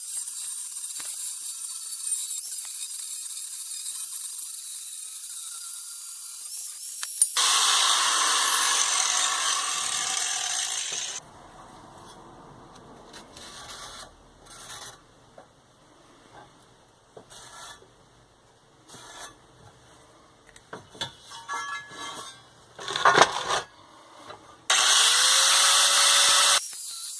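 A power tool whining high as it cuts metal plate, growing louder and harsher about seven seconds in, then stopping abruptly. A quieter stretch of clicks and knocks follows, with one sharp loud knock, before the tool's high whine starts again briefly near the end.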